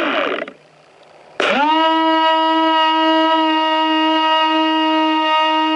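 Electric drive motor of a remote-controlled boat whining. The fading end of a short run falls in pitch and stops at the start. About a second and a half in, the motor spins up quickly and holds one steady pitch.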